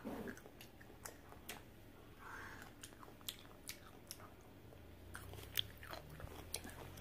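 A pickle being chewed with the mouth smacking: scattered sharp wet clicks and crunches.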